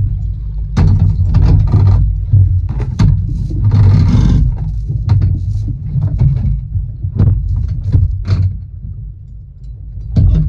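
Small boat's outboard motor idling with a steady low rumble, under irregular knocks and rustling as the anchor rope is hauled in hand over hand against the boat's side.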